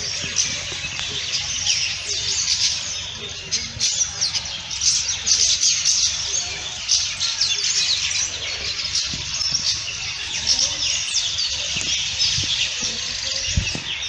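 A dense chorus of many birds chirping and calling together, with short high chirps overlapping without a break.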